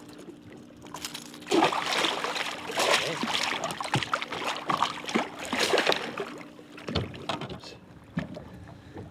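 A hooked muskie thrashing and splashing at the water's surface as it is grabbed by hand alongside the boat. The splashing starts about a second and a half in, goes on hard for about five seconds, then dies down.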